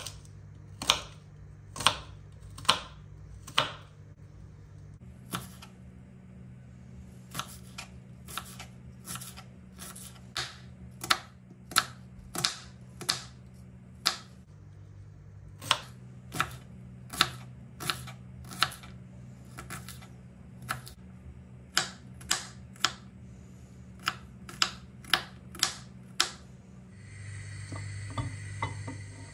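Kitchen knife chopping a small red onion on a bamboo cutting board: sharp knocks of the blade hitting the wood, about one a second at first, then quicker and irregular. Near the end the knocks stop and a steady hiss takes over.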